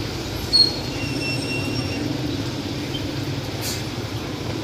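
Rainy street: steady traffic rumble under the hiss of rain, with a short high squeal about half a second in and a thin high whine for about a second after it.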